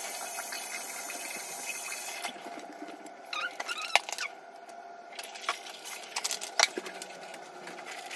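Water running in a bathroom sink, shut off abruptly about two seconds in. Then a few sharp clicks and small knocks as a plastic bottle is handled.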